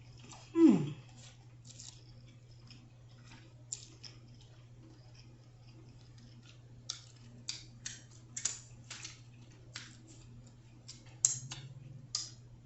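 Close-up eating sounds of a mouthful of seafood being chewed: scattered wet clicks and lip smacks, a few louder ones near the end. About half a second in, a short falling vocal "mm" is the loudest sound. A steady low hum runs underneath.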